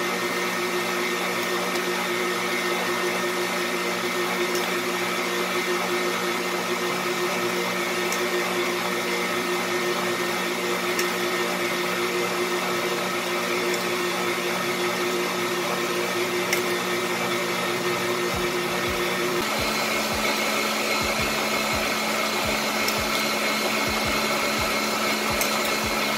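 Hanabishi stand mixer running steadily at raised speed, its balloon whisk whipping egg whites and sugar into meringue. About 19 seconds in its tone drops a little, and irregular low knocks join it.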